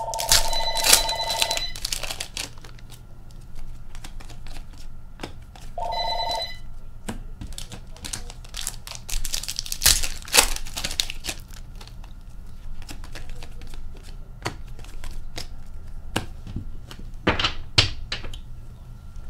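A telephone rings twice with a trilling electronic ring: about two seconds at the start, then a shorter ring about six seconds in. Around it, the foil wrappers of trading card packs rustle and tear as cards are handled.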